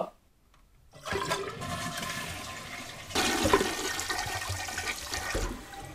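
Toilet with a Fluidmaster Duoflush dual-flush valve flushing: a rush of water into the bowl begins about a second in and grows louder about three seconds in.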